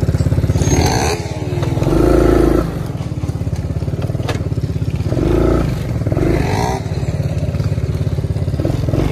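ATV (four-wheeler) engine running steadily, swelling louder a few times as the throttle is opened.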